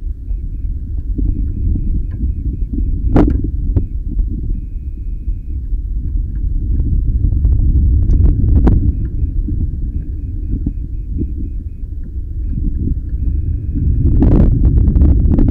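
Wind buffeting the onboard camera's microphone as the rocket swings under its parachute: a steady low rumble with several sharp knocks, the loudest cluster near the end. A faint high beeping comes in short runs over it.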